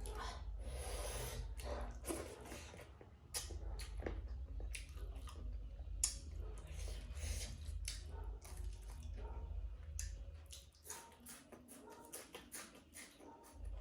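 Close-up eating sounds: a person chewing pork and rice, with many short wet mouth clicks and smacks.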